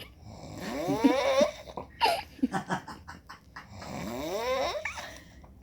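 Strange snoring: two long snores that rise in pitch, each climbing over about a second, with a run of short clicks and snorts between them.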